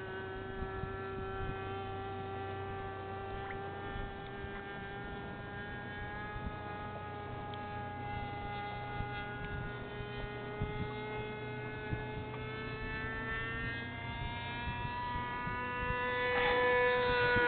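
Radio-controlled Seamaster model seaplane's engine heard in flight at a distance: a steady high-pitched whine whose pitch drifts slowly, steps up about fourteen seconds in, and grows louder near the end.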